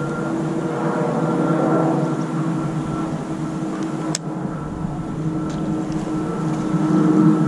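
A distant motor running steadily with a constant hum, and a single sharp click about four seconds in.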